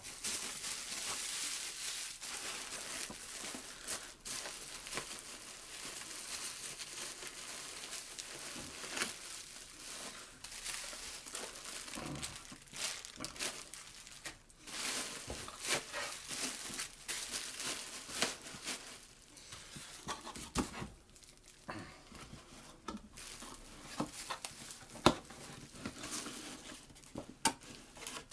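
Plastic packaging crinkling and rustling, with bits of tearing and light clicks and knocks, as the camera's wrapping is taken off.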